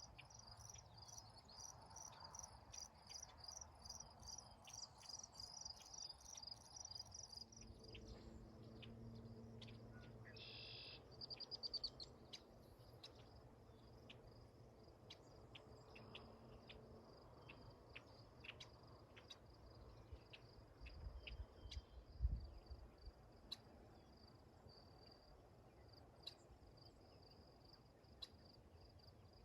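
Crickets chirping in a continuous high trill, pulsing about three times a second early on and steadier afterwards, with a short bird call about eleven seconds in.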